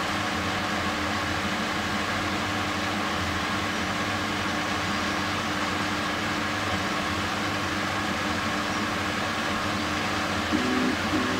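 Steady mechanical hum and hiss at an even level.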